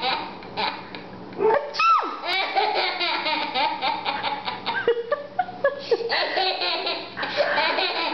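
Hearty laughter in repeated runs of quick giggling pulses with short breaks between them.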